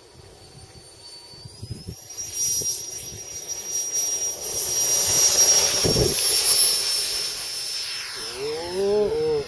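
70 mm 10-blade electric ducted fan of an RC jet running up to full throttle for the takeoff run: a high-pitched whine that steps up in pitch about two seconds in and grows louder, peaking about halfway through and easing slightly as the jet lifts off.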